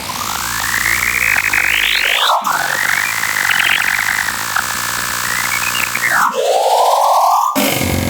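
Black MIDI playback: masses of synthesized notes sounding at once, merging into a harsh, noisy cluster. The clusters bend up and down in pitch in shaped blocks and break off about two and a half seconds in and again near six seconds. A lower, rounded cluster then gives way abruptly to a rough wash that fills the whole range near the end.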